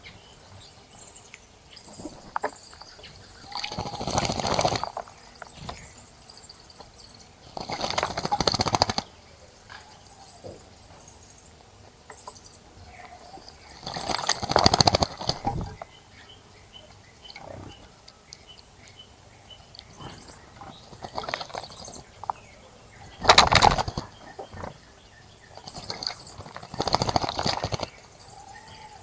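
A small bird bathing in a bird bath, splashing and fluttering its wings in the water in five separate bursts of about a second each.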